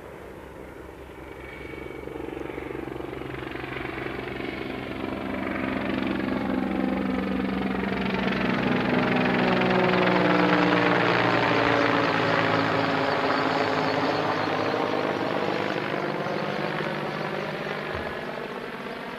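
Mi-24P attack helicopter flying low overhead: the beat of its main rotor and the whine of its twin turboshaft engines grow louder to a peak about halfway through. The pitch then drops and the sound fades as it passes.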